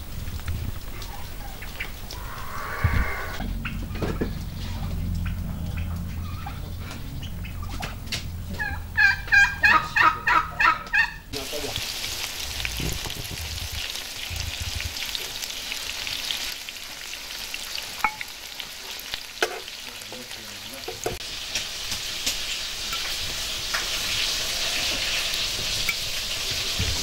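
Poultry calling about eight times in quick succession, about nine seconds in. From about eleven seconds on, the steady sizzle of food frying in hot oil takes over, with small pops and clicks through it.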